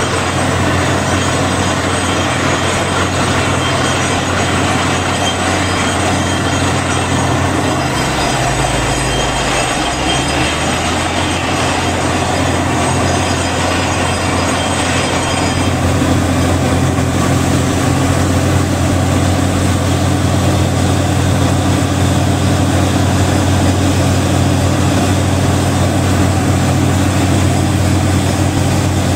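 Truck-mounted borewell drilling rig running loud and steady while drilling, a dense mechanical din over the low hum of its engine. The engine's hum briefly drops lower about eight seconds in and recovers by about ten seconds.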